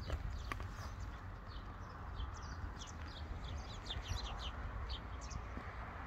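Small birds chirping, many short quick chirps in a scattered series, over a steady low rumble.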